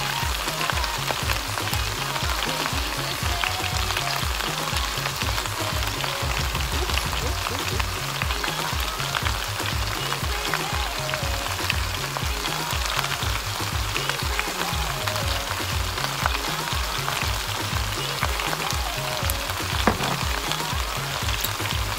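Chopped potatoes, carrots, celery and onions sizzling in olive oil in a large pot, a steady crackle. Background music with a regular bass line plays underneath.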